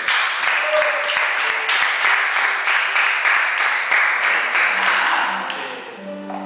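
A small group of people clapping hands in applause at the end of a sung guitar song, thinning out about five and a half seconds in. A few steady guitar notes sound near the end.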